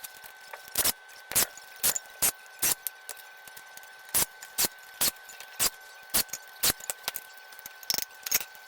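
Hand tools working on a Kohler CV16 engine's crankcase: a string of separate sharp metallic clicks and knocks, roughly two a second, over a faint steady high hum.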